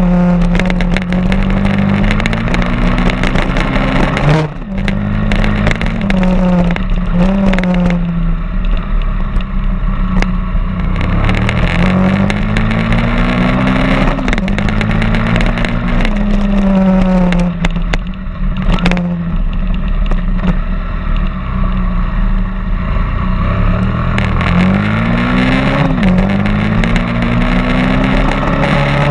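Stomp 120 pit bike's single-cylinder four-stroke engine under way, several times rising in pitch as it revs up and then dropping back sharply, with scattered knocks and rattles from the rough track.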